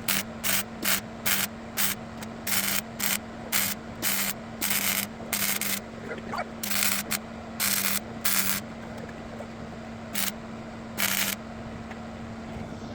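A run of short bursts of MIG welding, a string of tack welds on sheet-metal patch panels, each burst a fraction of a second long with irregular gaps. A steady welder hum dips in pitch each time the arc strikes.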